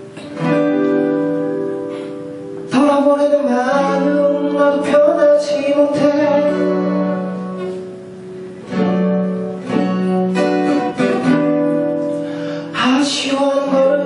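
Acoustic guitar played live, chords ringing out with a new chord struck every few seconds.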